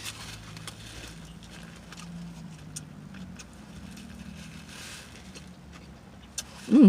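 Chewing a cold-cut sub with scattered small mouth smacks, over the steady low hum of a parked car. A short vocal sound near the end.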